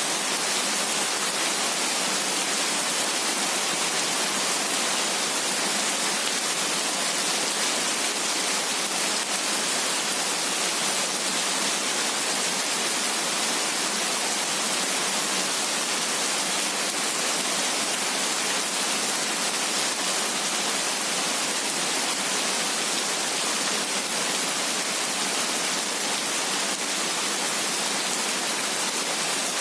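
Steady heavy rain falling, an even, unbroken wash of noise with no thunder and no distinct single drops.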